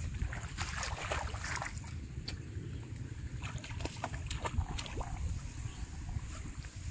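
Shallow water sloshing, with scattered light splashes, as a person wades through a flooded weedy field and feels through the water by hand. A steady low rumble of wind on the microphone runs underneath.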